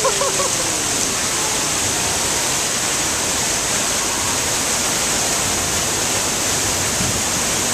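Steady rush of water running down a water slide and spraying, echoing in an indoor water park.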